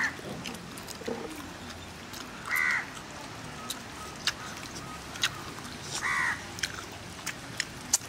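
A crow cawing three times, single harsh caws about three seconds apart, over scattered small sharp clicks and taps.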